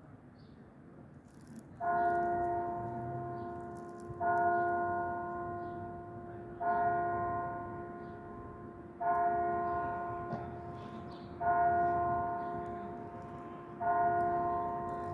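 Tower clock's digital carillon striking the hour with six identical bell strokes, evenly spaced about two and a half seconds apart, each ringing out and fading slowly before the next.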